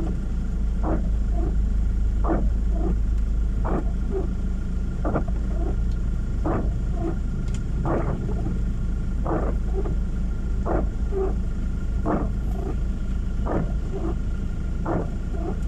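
Steady low road and engine rumble inside a car's cabin while driving in rain. Windshield wipers sweep back and forth with a regular stroke about every second and a half.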